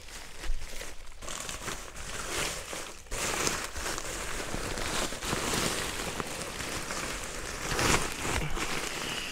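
Therm-A-Rest NeoAir XTherm Max inflatable sleeping pad crinkling and rustling as it is pressed flat and folded, louder from about three seconds in.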